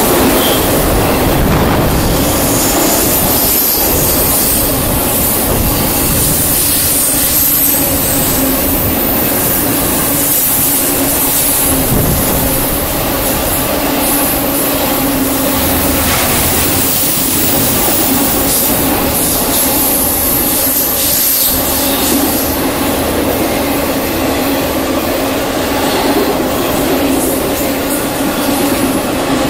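All-white BNSF intermodal freight train's cars rolling past on a curve: a steady rumble and clatter of wheels on rail, with a high-pitched flange squeal that comes and goes.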